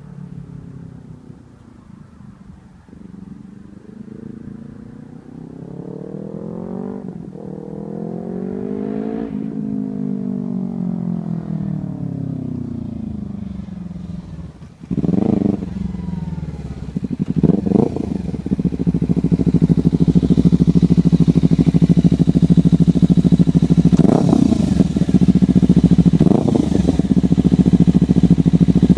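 2014 Kawasaki Ninja 300 parallel-twin with a Hotbodies MGP Growler slip-on exhaust, first heard at a distance climbing in pitch and dropping back through gear changes, then close by with sharp throttle blips. It settles into a loud steady idle with two short revs near the end.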